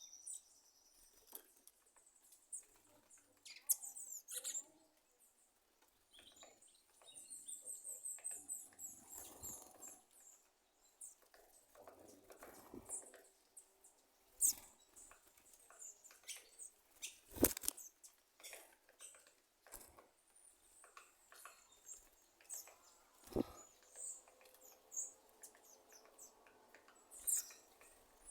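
A sabiá thrush making scattered sharp pops and clicks at irregular intervals, like popcorn popping, with a few short high chirps mixed in.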